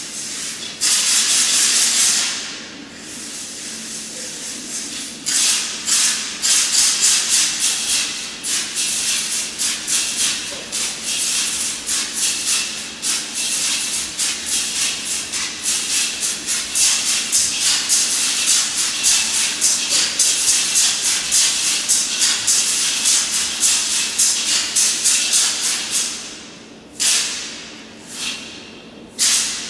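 Audience applause that settles into rhythmic clapping in time, about three claps a second, then breaks up into scattered claps near the end.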